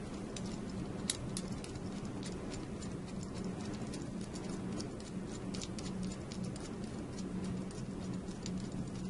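Light, irregular clicks and taps of a small metal key lock cylinder and its sheet-metal mounting bracket being handled and fitted together by hand, over a steady low hum.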